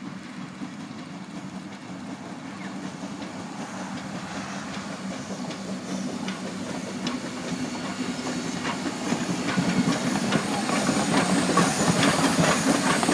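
Clover Valley Lumber Co. No. 4 steam locomotive arriving slowly, growing steadily louder as it nears, with wheels clicking over the rail joints and steam hissing loudest near the end.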